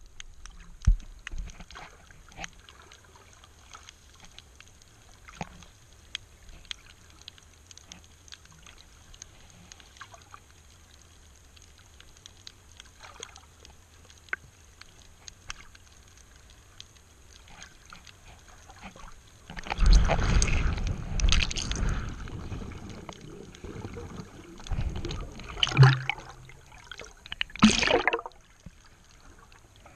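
Sound picked up by an underwater camera: faint scattered clicks and crackles, then, about two-thirds of the way through, several loud bursts of water rushing and bubbling around the camera.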